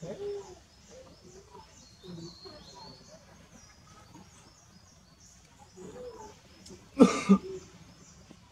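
Birds chirping repeatedly in the background; about seven seconds in, two quick, loud, harsh sounds.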